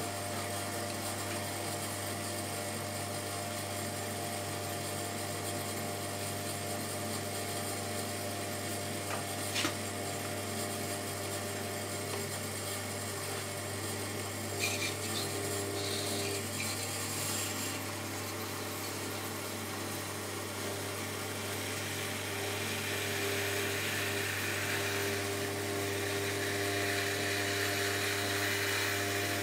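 Shimpo RK10 electric potter's wheel running at a steady speed, its motor humming, with one sharp click about ten seconds in. In the last few seconds a soft hiss joins it as a wet hand rubs the inside of the spinning stoneware bowl.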